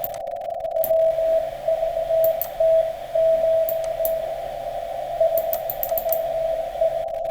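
Morse code (CW) heard on a shortwave ham radio receiver: a single tone keyed on and off in dots and dashes, set in steady receiver hiss, with a few scattered clicks of static.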